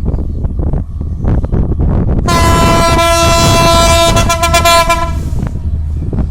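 Diesel train horn: one long blast of about three seconds, starting a little over two seconds in, over the steady rumble and rhythmic clatter of a moving train.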